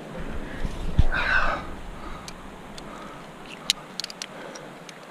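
Climbing gear at a bolted chain anchor: from about two seconds in, a scatter of sharp, light metal clicks and clinks as the rope and carabiners are worked on the anchor chains. About a second in there is a thump and a short rush of noise.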